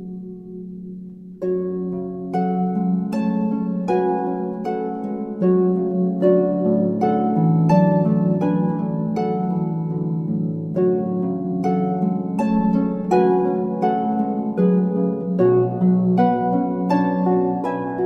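Harp playing, a run of plucked notes that each ring and fade over lower sustained notes; softer for the first second or so, then fuller and louder.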